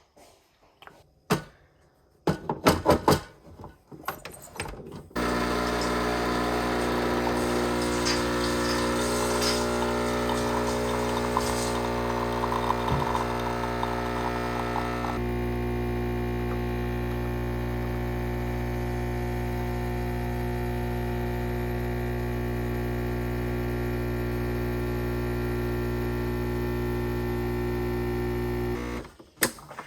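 A few light clicks and knocks, then about five seconds in a machine motor starts up with a loud steady hum. Its tone shifts partway through, and it stops abruptly just before the end.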